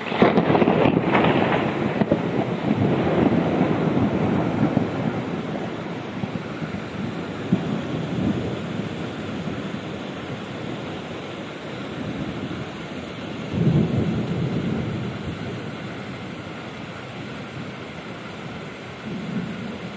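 Thunder during a night thunderstorm: a loud clap right at the start that rolls off over several seconds, another rumble about two-thirds of the way in and a fainter one near the end, over a steady hiss of rain.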